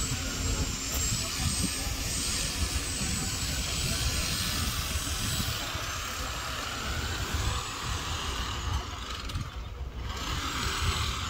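Wind rumbling on the microphone, with a steady hiss and faint, distant voices of people talking.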